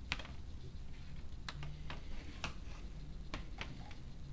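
A handful of light, sharp clicks and taps as a throwing peg is handled and pressed into the slot of a carbon fibre glider wing tip, over a low steady hum.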